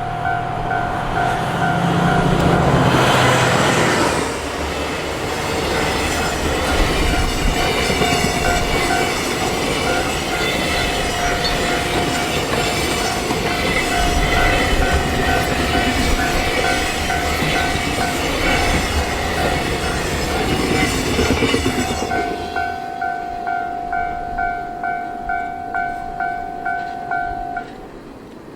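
A train sounds its horn about two seconds in, then passes close by with rumbling wheels clattering over the rail joints. A railway level-crossing alarm rings steadily in a fast repeating pattern throughout. Once the train has gone, the alarm rings on alone and cuts off near the end.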